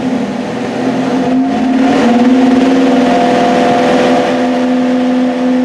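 Truck engine, not yet fully warmed up, brought up from idle with a little throttle: the engine note climbs over the first two seconds, then holds steady at the raised speed.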